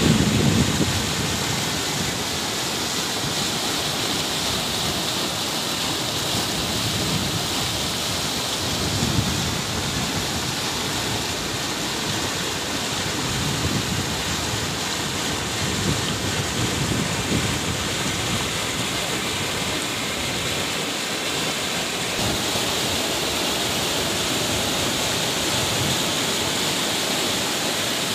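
Muddy floodwater rushing steadily down a swollen stream channel, with a few soft gusts of wind on the microphone.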